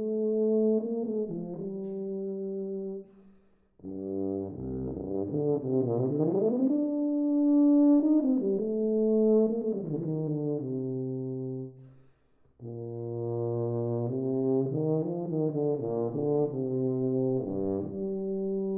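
Solo tuba playing unaccompanied: held low notes in phrases broken by two short pauses, about three and twelve seconds in. Around six seconds in the pitches sweep up and down.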